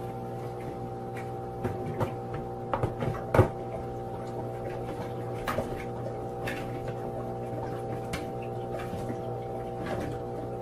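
Sunbeam humidifier's fan motor humming steadily, with scattered light taps and knocks on its plastic housing as a cat paws at it; the loudest knock comes about three and a half seconds in.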